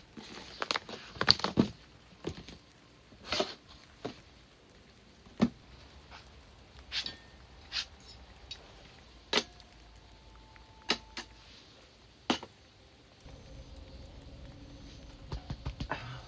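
Irregular sharp clicks and knocks of small objects being handled, a quick cluster at first and then single ones every second or two; a low steady hum comes in near the end.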